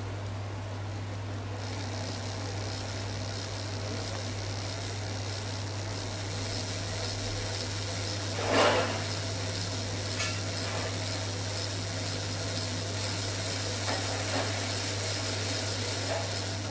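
Brass HO-scale model of a Virginian 2-10-10-2 articulated steam locomotive running on a test track, its electric motor and gearboxes giving a high whirr that starts about a second and a half in. The gearboxes and bearings are dry, with no oil after long storage. There is one loud clack a little past halfway and a few softer clicks later.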